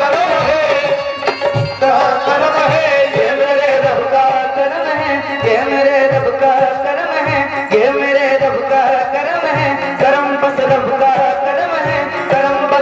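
Live devotional Muslim song in qawwali style: men singing with harmonium accompaniment over a steady hand-drum beat.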